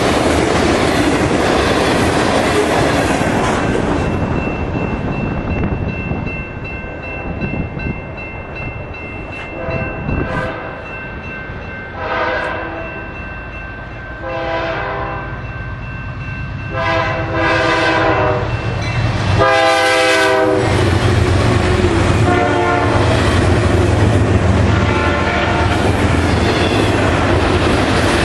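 Freight cars rolling past with a clattering rumble. Then a GE C44-9W diesel locomotive sounds its air horn in several blasts about every two seconds, the last ones the loudest. The locomotives pass with a deep engine rumble and wheel clatter.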